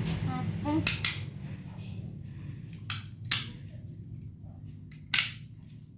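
Five sharp clacks of hard plastic toy cars being set down and handled: two close together about a second in, two around three seconds, one near five seconds.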